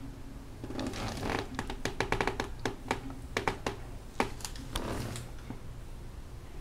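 Handling noise close to the microphone: a quick run of sharp taps and clicks with rustling, from about one second in until about five seconds in, over a steady low hum.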